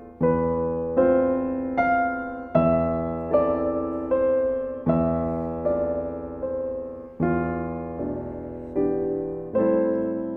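Slow, gentle solo piano music, single notes and chords struck about once a second and left to fade.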